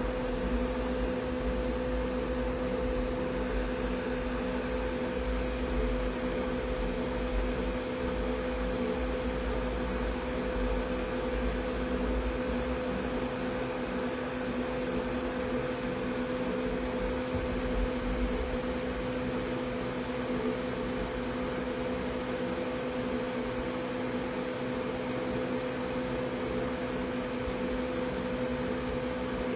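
Steady electrical hum, two held tones over an even hiss, unchanging throughout.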